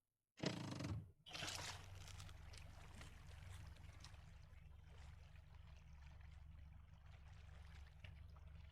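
Boat's outboard motor running slowly in gear, a faint steady low hum, with light water noise at the hull. A louder rush of noise comes in the first second.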